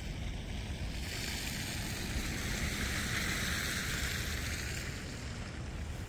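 Wind buffeting the microphone as a steady low rumble, with a rushing hiss that swells and fades over about four seconds in the middle.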